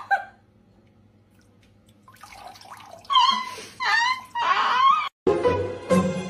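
A kitten stuck in a toilet bowl meowing three times in high, arching cries while water sloshes around it as it is lifted out. About five seconds in the sound cuts off and music begins.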